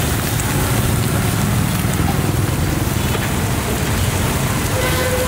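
Fried rice sizzling in a hot wok: a steady crackling hiss, with a low rumble underneath.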